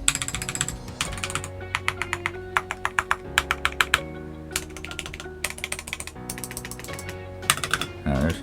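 Typing on an Akko 5075 mechanical keyboard: runs of rapid keystroke clacks in irregular bursts, with a little bit of ticking from its stabilizers.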